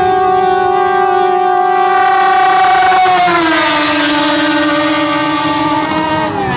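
Racing longtail boat engines at full throttle as the boats speed past, a loud, high-pitched whine. About three seconds in, the pitch drops steadily to a lower note as they go by.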